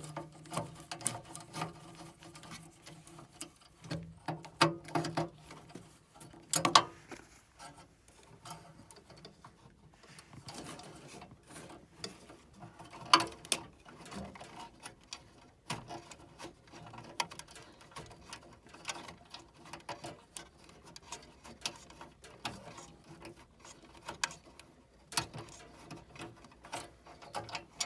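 Irregular metallic clicks and taps of hand tools and small furnace parts being handled, as a gas furnace's pilot assembly is put back in and its pilot tube fitting threaded on.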